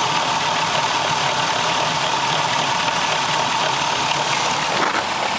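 Dodge Caravan's 3.3-litre V6 idling with a steady high-pitched squeak over it, fading somewhat after a couple of seconds. The squeak rises in speed with engine speed and was traced to the alternator, which had a wiggle to it.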